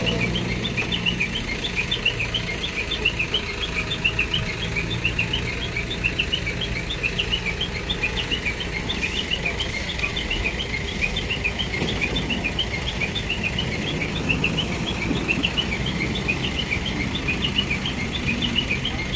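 ACE Hydra mobile crane's diesel engine running steadily, with a rapid, high chirping warning beeper repeating about four or five times a second over it.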